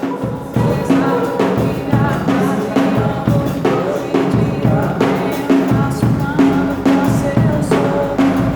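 Music with a drum kit keeping a steady beat of about two hits a second, over sustained bass notes and a melody line.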